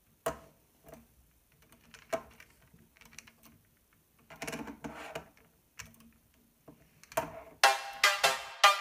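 Hard plastic clicks and rattles of LEGO Technic parts as the saw-blade arm of a tracked model is moved by hand: a few single clacks, then a longer rattle about halfway through. Electronic music with a repeated note starts near the end.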